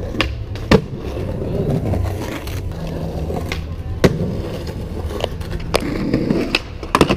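Skateboard wheels rolling over stone paving tiles, with several sharp wooden clacks of the board popping and landing. The loudest come about a second in, about four seconds in, and in a quick cluster near the end.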